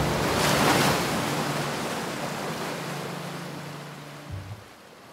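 An ocean wave surges in and washes away as a fading hiss over a low held note. The note stops a little after four seconds, closing a piece of music.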